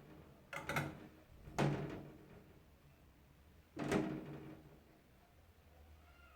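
Three dull knocks, about half a second in, a second later, and again near four seconds in, each dying away briefly.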